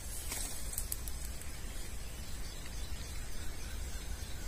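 Faint steady hiss over a low rumble of outdoor background noise, with a few light clicks in the first second and a half.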